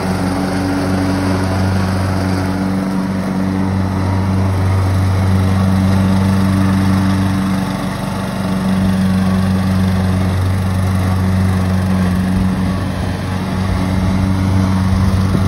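Troy-Bilt riding lawn mower engine running steadily with a low, even hum. It dips slightly in loudness twice.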